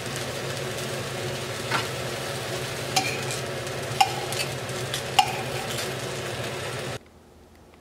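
Slices of ham sizzling in a stainless steel frying pan, with metal tongs clinking against the pan four times as the slices are lifted out. The sizzle cuts off abruptly near the end.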